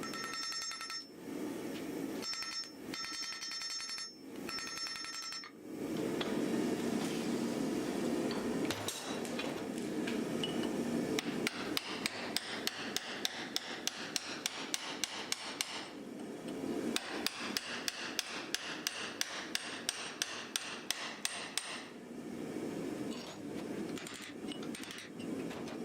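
Hammer blows on the wrought-iron axe being forged, a long steady run of strikes about two to three a second.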